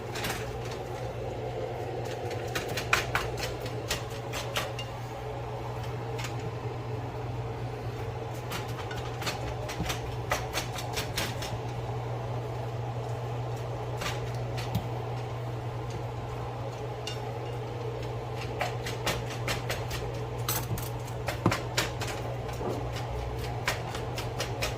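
Irregular clusters of sharp clicks and knocks from kitchen utensils and cookware, over a steady fan hum.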